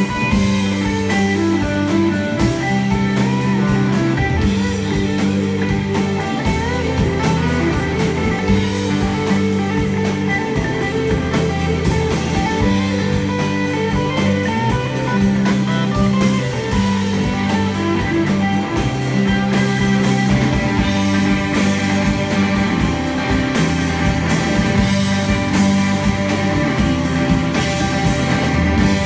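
Live rock band playing: electric guitar over electric bass and a drum kit, the bass holding long low notes and the drums keeping a steady beat.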